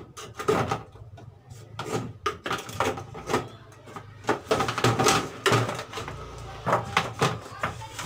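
Irregular plastic clicks and knocks as the plastic top panel of a twin-tub washing machine is handled and pried open.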